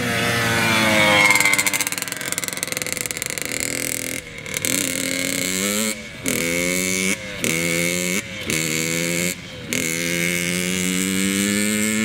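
Small dirt bike's engine revving as it rides past and away: its pitch falls over the first couple of seconds, then climbs and cuts back four or five times in quick succession before a long, slow rise near the end.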